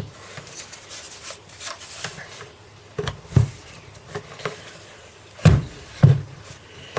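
Handling noise from a Silverline 810 W belt sander being set on the edge of a workbench: rubbing and a few knocks, the loudest about three seconds in and twice more near the end.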